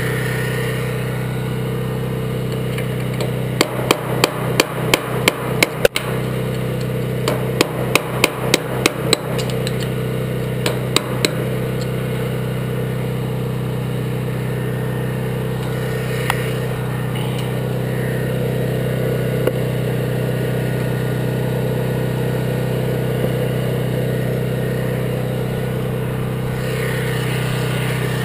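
Quick hammer blows on metal in three runs, about eight, then seven, then two, over a steady motor hum.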